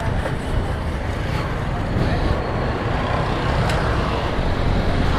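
Yamaha FZ motorcycle engine running as the bike sets off into street traffic, a steady low rumble growing a little louder.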